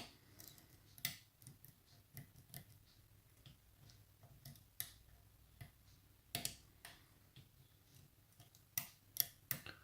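Faint, scattered small metallic clicks and ticks of a homemade pick working the pin tumblers of a challenge lock under tension. The clicks come irregularly, with a quick run of sharper ones near the end.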